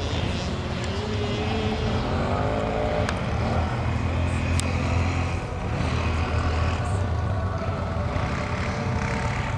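Distant ATV (quad) engine revving up and down as it rides the course, its pitch rising and falling, over a steady low rumble.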